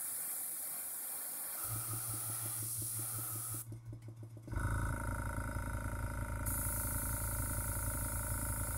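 Airbrush hissing as it sprays paint, with a small airbrush compressor switching on about two seconds in and running with a low pulsing hum. The compressor falters briefly, then runs louder from about halfway through.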